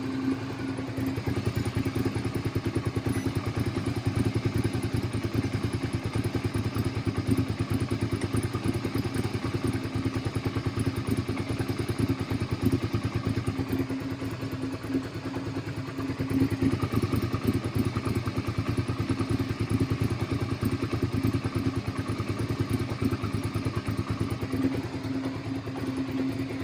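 Suzuki SV650's 645 cc V-twin engine running steadily at a low idle, slightly louder about two-thirds of the way through; it is the bike under investigation for misfiring.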